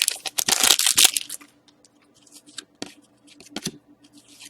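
A hockey card pack wrapper being torn open, a loud ripping crinkle over about the first second and a half, followed by a few light clicks and rustles of the cards being handled.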